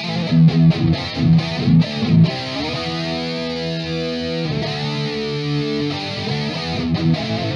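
Electric guitar through a Crate GT-200 amp head with a Boss SD-1 overdrive pedal and the amp's chorus on. It plays a distorted riff of short choppy notes, then two chords left to ring for about two seconds each, and the choppy riff starts again near the end.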